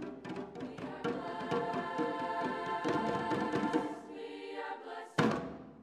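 Treble choir singing the closing bars of a song over hand-drum percussion, holding a chord while the drums keep striking. About five seconds in, one loud final hit ends the piece and dies away.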